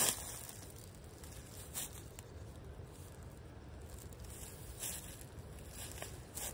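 Short scattered rustles and crackles of dry fallen leaves as someone moves about on them, over a low steady rumble.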